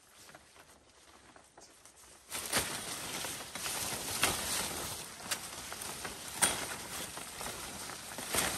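Large broad leaves rustling and leaf stalks snapping as dong leaves are picked by hand in dense undergrowth. Faint at first, then louder from about two seconds in, with several sharp snaps.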